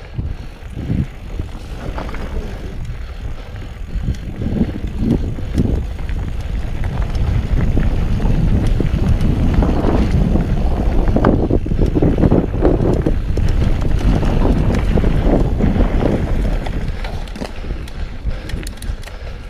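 Mountain bike ridden along a trail, with wind buffeting the microphone and rattling and clicking from the bike. The wind noise grows a few seconds in, is loudest midway and eases near the end.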